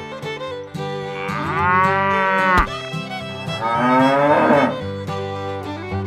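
Two long cow moos, one starting about a second in and a second one past the middle, over fiddle background music; a cow sound effect dubbed over the toy cow figures.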